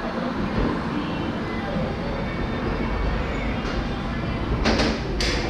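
A steady low rumble, then a few sharp knocks about five seconds in, from tools working on the starter motor under the car.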